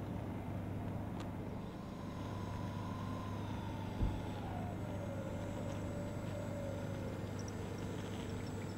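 Twin electric motors of a Dynam Grand Cruiser RC plane whining as it taxis, over a steady low rumble; the whine falls in pitch about halfway through. A single thump comes about four seconds in.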